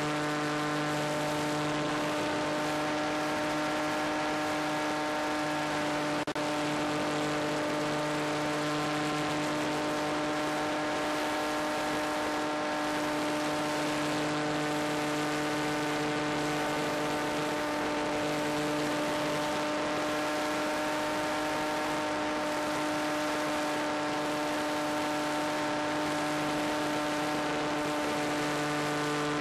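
Electric motor and propeller of a Skywalker FPV model plane running steadily in flight, a constant whine over rushing air noise.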